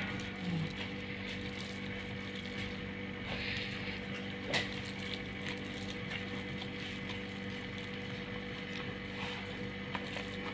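A plastic-gloved hand squishing and kneading shredded potato and onion in thick gram-flour batter in a plastic bowl: soft wet squelching and rustling, with a couple of sharper clicks about three and a half and four and a half seconds in. A steady low hum runs underneath.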